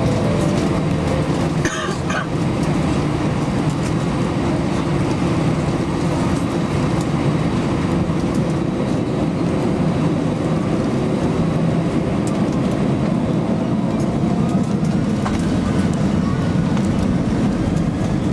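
Steady cabin rumble of an Airbus A320 rolling along the ground, engine and wheel noise heard through the window seat. A faint whine rises in pitch over the last few seconds.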